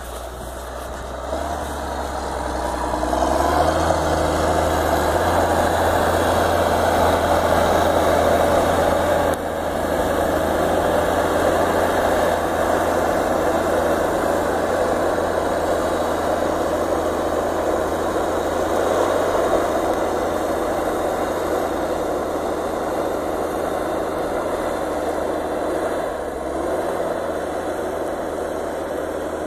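Cummins 6CTA turbo-diesel straight-six of a Pistenbully PB 280 D snowcat running steadily under load as the machine climbs slowly up a steep slope through deep fresh powder. The sound swells over the first few seconds and dips briefly about nine seconds in.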